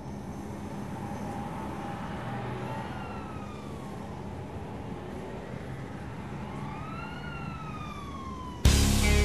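A siren wails twice in slow rising-and-falling sweeps over a steady low city rumble. Loud band music cuts in near the end.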